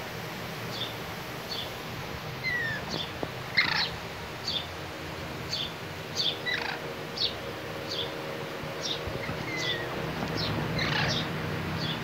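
Pet parakeets chirping: short, high, falling chirps repeat about every two-thirds of a second, broken three times by a louder, longer call and twice by a falling whistle.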